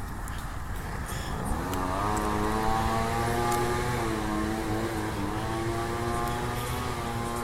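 An engine revs up about one and a half seconds in and runs at a steady pitch, dips briefly near the middle, then rises again and holds.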